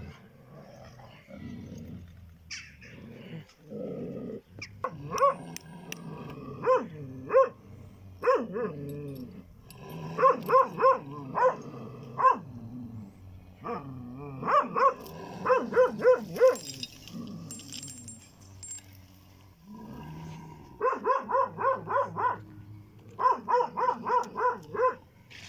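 Large shepherd dogs growling at each other in a scuffle over a female in heat, broken by several bursts of quick, repeated barks, about three or four a second.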